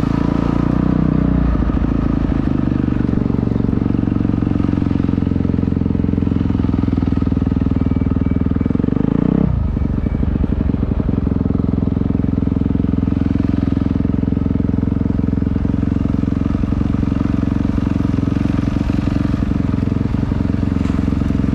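Dirt bike engine running as it is ridden, its revs rising and falling, with a sudden drop in engine speed about nine and a half seconds in.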